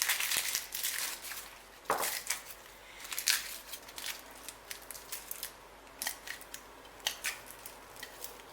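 Garlic cloves being peeled by hand: the dry papery skins crackle and snap in irregular small clicks, thickest in the first second and a half, then scattered, with one sharper knock just before two seconds in.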